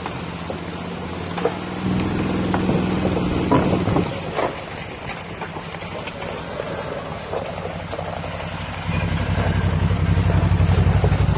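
ATV engine running, its throttle opened up about two seconds in and again near the end, with scattered short knocks and clatter in between.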